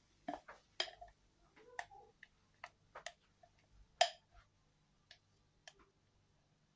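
Light clicks and knocks of a glass mixing bowl and silicone spatula as thick batter is scraped out into a frying pan: about eight irregular taps, the loudest about four seconds in.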